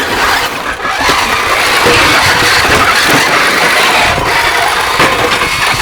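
Steady mechanical running noise from combat robots' motors during a match, loud and without a clear pitch.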